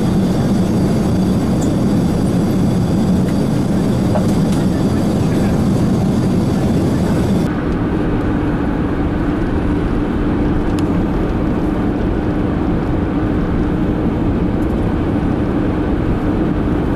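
Steady, loud cabin noise of an airliner in flight, an even rush with plenty of hiss. About seven and a half seconds in it cuts abruptly to road noise heard inside a car on a highway: a duller, lower rumble with a steady hum.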